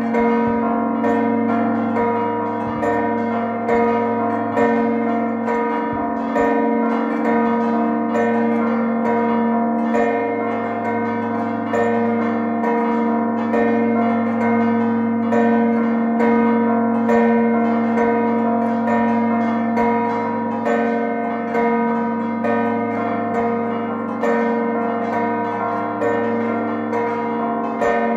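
A festive peal of six church bells, struck over and over in quick, overlapping strokes so that their tones ring on into one another. It is the closing peal that marks the end of a feast.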